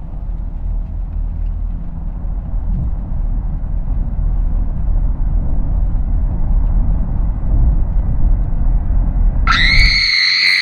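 A deep rumbling drone that slowly builds in loudness. About nine and a half seconds in, a loud, shrill shriek with several overtones cuts in and rises in pitch.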